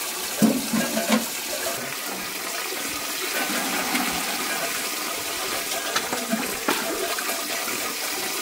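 Water running steadily as a plastic bucket is filled from a barrel, with a few sharp knocks of the bucket against the barrel.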